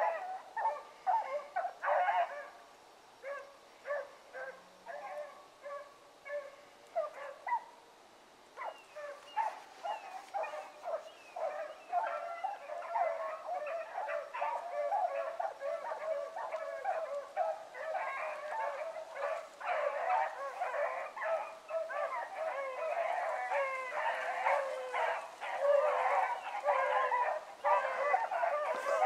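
A pack of rabbit dogs giving mouth as they run a rabbit's track: overlapping barks and bays, scattered for the first several seconds, then a dense, continuous chorus from about nine seconds in.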